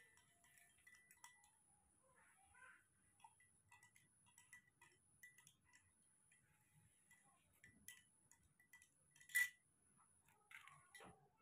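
Near-quiet room with faint, even ticking about twice a second over a thin high whine. A single sharp click comes about nine seconds in, and a faint squeaky call near the end.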